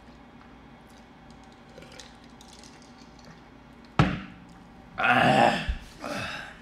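A sharp knock about four seconds in as a glass is set down on the table. Then a loud burp lasting under a second comes from someone bloated with cola, followed shortly by a shorter, quieter sound.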